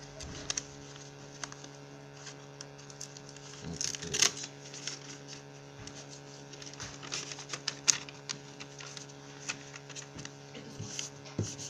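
Paper and an envelope being handled and folded on a counter: scattered rustles and short clicks, the loudest about four seconds in and again near eight seconds, over a steady electrical hum.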